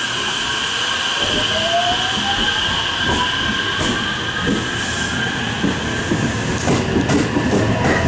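A JR West 225-series electric train pulling away from the platform. Its traction motor whine climbs in pitch as it accelerates, then starts a fresh climb near the end, over steady high tones and the clicking of wheels on the rails.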